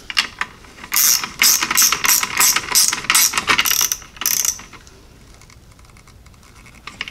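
GearWrench gimbal ratchet clicking as it tightens the nut on the amplifier power wire's terminal at the battery fuse block: a quick run of clicks that stops about four and a half seconds in, with a few more near the end.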